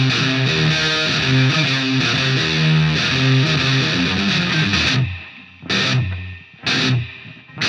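Background music led by a distorted electric guitar. About five seconds in, the full band drops away, leaving separate loud chord hits with gaps between them.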